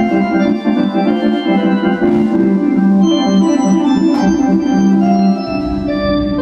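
Live band's instrumental passage led by an electronic organ-style keyboard playing quick rhythmic chords. The bass is thin for most of it and comes back in strongly near the end.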